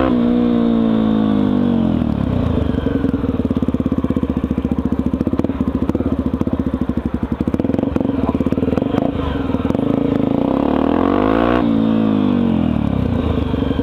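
Honda XR250 Tornado's single-cylinder four-stroke engine heard while riding: the revs drop over the first two seconds, the engine runs at low, steady revs with a pulsing beat, then revs up again near the end before settling.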